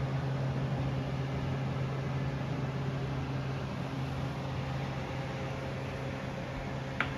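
Homerunpet Drybo Plus pet drying house's blower running steadily with a low hum and a rush of air. Near the end there is a brief high squeak.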